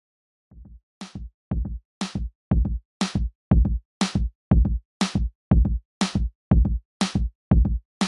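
Background electronic music: a drum-machine beat fading in about half a second in, with low kicks alternating with sharp, crisp hits about twice a second.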